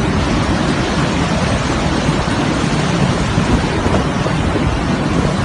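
Hurricane wind and driving rain in a steady, loud rush, with wind buffeting the microphone.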